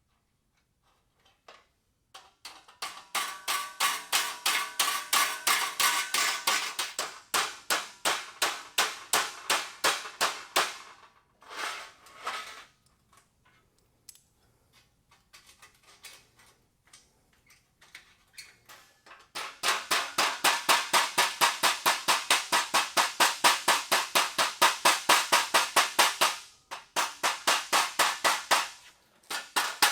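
Rapid, regular metalworking strokes, about four a second, in two long runs with a few scattered knocks between, from hand work on a sheet-steel patch panel.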